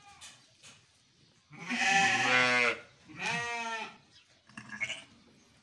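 Sheep bleating: a long, loud call about a second and a half in, a shorter one right after, then a brief quieter sound near the end.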